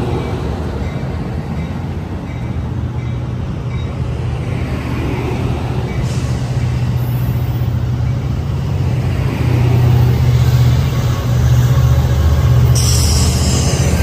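Passenger train cars rolling past at close range with a steady low rumble. The rumble grows louder toward the end as the F59PHI diesel locomotive pushing at the rear draws near, and a high hiss joins about a second before the end.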